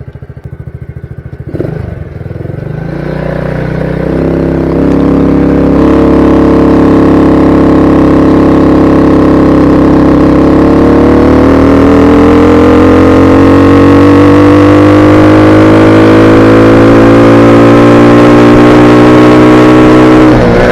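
Honda 50 cc automatic single-cylinder engine on a motorized bicycle revving up as the bike pulls away. Its pitch rises steadily, eases off briefly about halfway through, then climbs again.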